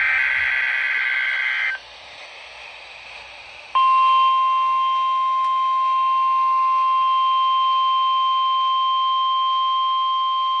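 NOAA Weather Radio attention signals for a required weekly test: a short burst of rapid, warbling two-tone data (the SAME digital header) that stops after about two seconds, a brief pause of radio hiss, then the steady 1050 Hz warning alarm tone switching on and holding.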